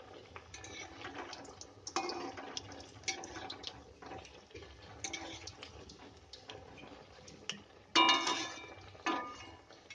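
Mughlai paratha frying in hot oil in a steel wok: steady sizzling with a dense crackle of small pops. A few louder strokes of a spatula against the pan come through, the loudest about eight seconds in.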